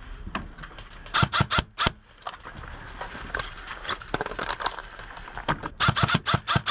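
ICS PAR MKIII airsoft electric gun (AEG) firing in quick strings of sharp shots: about five a second in, scattered shots in the middle, and a faster string near the end.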